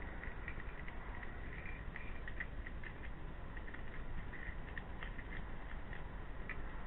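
Hedgehog eating from a plate: irregular small clicks and smacks of chewing, several a second, over the camera's steady hiss.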